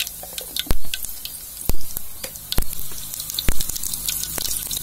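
Mustard seeds popping in hot oil in an aluminium kadai: irregular sharp pops over a hissing sizzle, the loudest coming about once a second.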